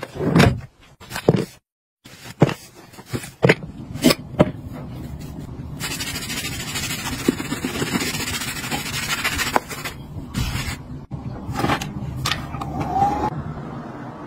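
Several sharp knocks and clicks of objects being handled in the first few seconds. Then a sponge scrubs over a boot's surface with a steady rubbing hiss for about four seconds, and a few more clicks follow near the end.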